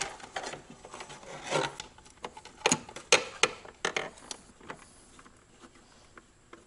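Hand screwdriver tightening the screw on a ground wire's ring terminal, with the wire being handled. Rubbing and scraping at first, then several sharp metallic clicks close together about three seconds in, then fainter ticks.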